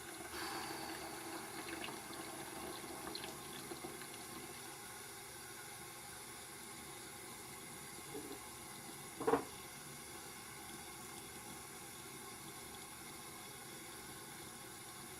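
Sink tap running in a steady stream, a little louder in the first few seconds. A light knock about nine seconds in, with a fainter one just before, as of a bottle set down on a counter.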